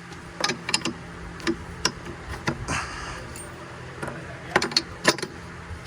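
Sharp metallic clinks and clicks of hand tools, in short clusters, as sockets are tried on a bolt to find its size. A steady low hum sits underneath.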